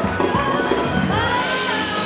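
Live acoustic band music: a plucked guitar rhythm, with a sliding melody line coming in about a second in and settling into held notes.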